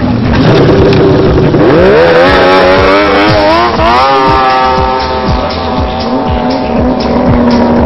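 Ski-Doo snowmobile engine revving hard as the sled launches from the start line. The pitch climbs steeply for about two seconds, then holds high as it pulls away.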